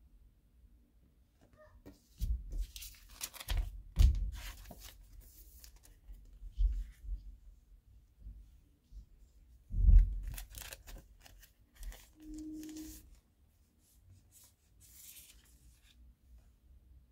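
Glossy photo cards being handled: rustling and sliding against one another, set down on a table with soft knocks, in two busy bursts with the loudest knock about ten seconds in. A short, steady low hum follows shortly after.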